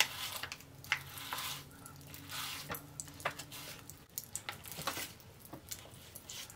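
Pop Rocks candy crackling and popping as a child licks it from its packet: scattered sharp little pops and a light fizzing, mixed with licking and the packet crinkling.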